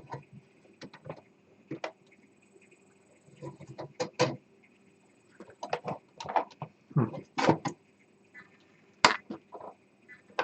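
Irregular clicks and knocks of plastic parts handled by hand as a stuck filament tube is worked at in its fitting on a small 3D printer, over a faint steady hum.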